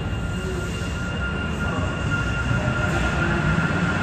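Driverless light metro train approaching in a tunnel, its running noise growing louder with a steady high whine as it comes alongside.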